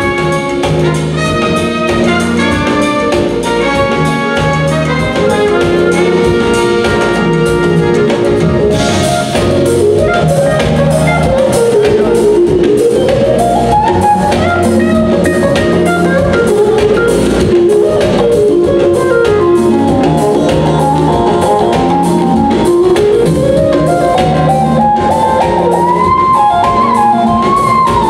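Live jazz-fusion band playing loudly: horns, drum kit and keyboards over a steady groove. From about nine seconds in, a keyboard lead takes over, sweeping up and down in pitch in long glides.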